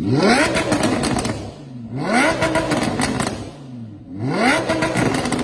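Lamborghini Huracan LP580-2's naturally aspirated V10, breathing through a Fi Exhaust valvetronic catback, revved three times about two seconds apart. Each blip climbs steeply in pitch and falls back toward idle, with a crackle at the top of each rev.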